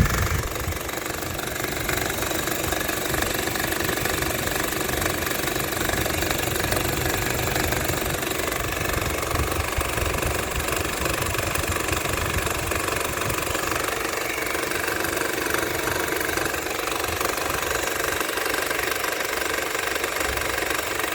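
2014 Honda Civic engine running with the air conditioning on, making a steady, rapid, uneven low knocking vibration. The noise eases when the air conditioning is switched off, and the owner wonders whether a worn engine mount is to blame.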